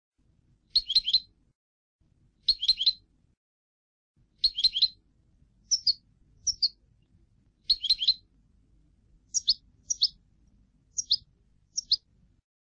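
European goldfinch song, a 'clean' tutor copy of the kind used to teach young goldfinches. Short bursts of rapid twittering repeat every second or two, then give way to single high notes that fall in pitch, some of them in pairs.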